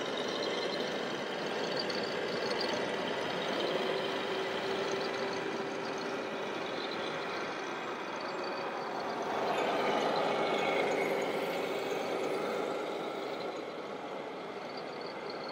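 Simulated truck diesel engine sound from the sound modules of radio-controlled scale trucks, running steadily and swelling briefly a little past halfway.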